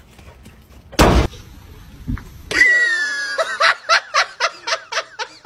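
A loud thump about a second in. Then a squeaky rubber toy held in a horse's mouth squawks: one long falling squeal, then a quick run of short squeaks, about three or four a second.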